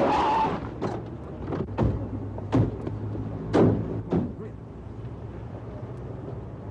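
A brief rush of noise that fades out, then a scatter of sharp, irregular knocks: drumsticks tapping the rubber pads of an electronic drum kit, heard without the kit's own sound.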